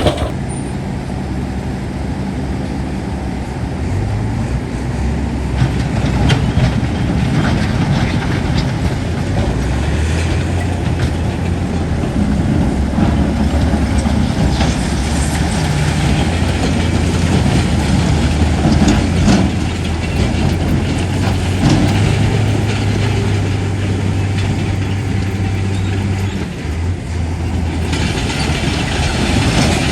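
Bulldozer's diesel engine running steadily, with the clank and rattle of its steel tracks.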